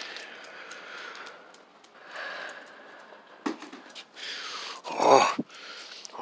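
Heavy, wheezy breathing in short huffs, with a sharp knock about three and a half seconds in and one louder huff about five seconds in.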